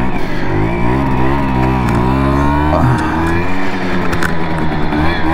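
Simson moped's two-stroke engine under way, its revs climbing and dropping several times as it pulls away and changes gear.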